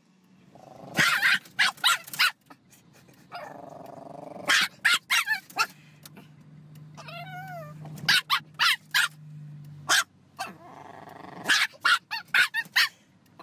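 Dogs barking in four volleys of quick, sharp barks. The first comes from a chihuahua; the rest come from a black dog inside a car, barking at the windshield. About seven seconds in there is a wavering whine.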